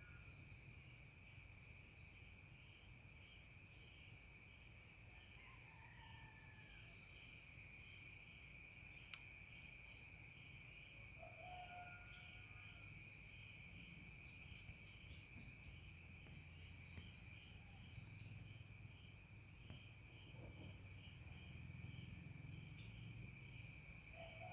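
Faint, steady night-time chorus of crickets, a continuous high trill with an even pulse. A few short distant calls break in, and a rooster starts crowing right at the end.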